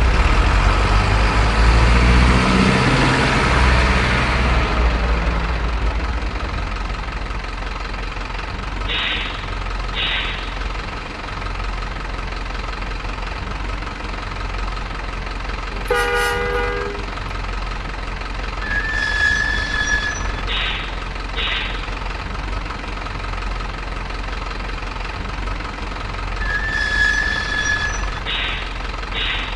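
RC model CC206 diesel locomotive running, with a loud rumble over the first few seconds. A horn toot comes about sixteen seconds in, and pairs of short high beeps sound now and then over a steady low hum.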